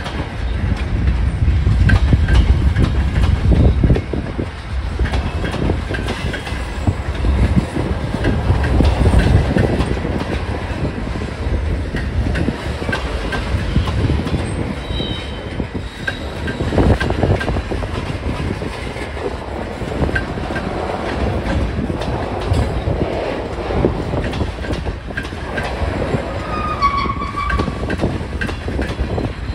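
Freight train cars (covered hoppers and tank cars) rolling past: a steady rumble with wheels clacking over rail joints. Brief high wheel squeals come in about halfway and again near the end.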